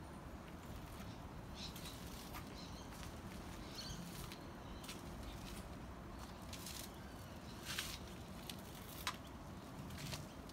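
Quiet outdoor background: a low steady rumble with scattered faint clicks, and a couple of faint chirps early on.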